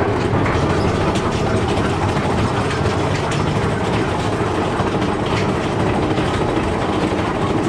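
Big Thunder Mountain Railroad mine-train roller coaster cars rolling along the track: a steady rumble of wheels on rails with a few scattered clicks, heard from aboard the train.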